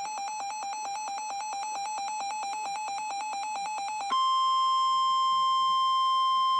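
Emergency alert broadcast tones: a rapidly pulsing electronic tone for about four seconds, then an abrupt switch to a single steady, louder attention tone, the alarm that comes before a weather alert message.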